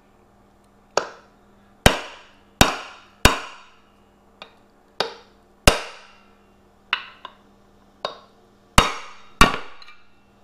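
About a dozen hammer blows at an uneven pace, each ringing briefly, as a hammer drives a metal drift against a Ford 6.0 Powerstroke oil cooler assembly to knock it apart.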